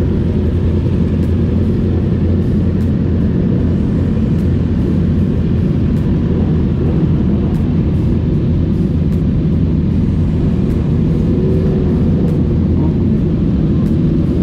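Motorcycle engine running at a steady pace, a low steady drone with no rise or fall in revs.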